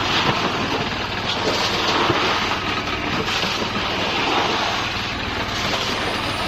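An engine running steadily under a dense, even mechanical noise with a constant low hum.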